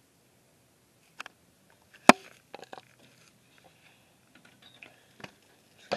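Scattered light clicks and taps with a single sharp, loud tap about two seconds in and another click near the end.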